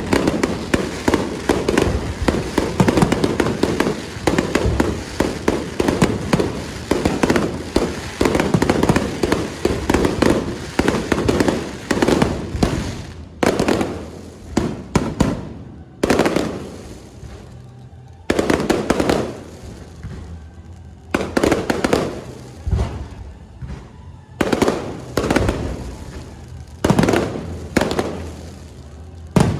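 Electronically fired fireworks going off. Dense, rapid bangs and crackling run together for about the first twelve seconds, then the bangs come in separate volleys with short gaps between them.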